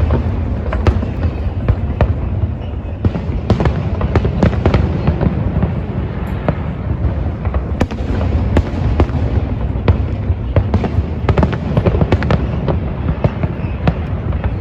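Fireworks display: a dense, continuous low booming of shell bursts with frequent sharp cracks and bangs.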